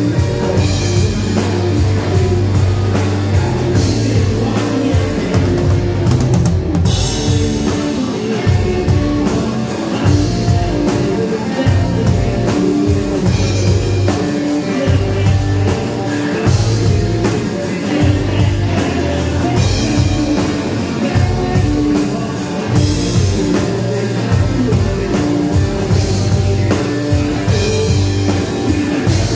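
A rock band playing live: a drum kit keeps the beat under electric guitar and a heavy low end.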